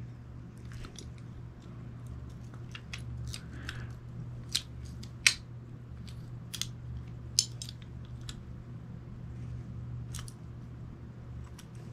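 Small metal clicks and taps of a Ruger New Vaquero revolver's parts being worked by hand, scattered and irregular, with a few sharper clicks in the middle, over a steady low hum. The parts are being shifted to get the cylinder latch back onto its spring, which it has missed.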